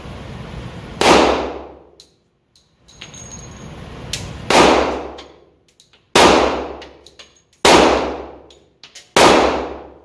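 Five shots from a Glock 40 10mm long-slide pistol, the first alone and the other four about a second and a half apart. Each sharp report rings out and decays over about a second in the enclosed range bay.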